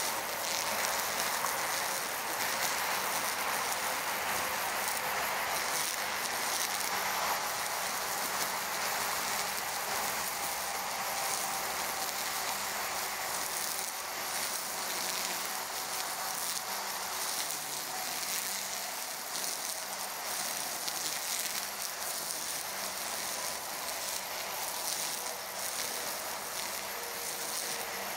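EGO Power+ cordless brush cutter running steadily, its spinning head cutting through tall grass with a continuous hiss and a faint motor whine.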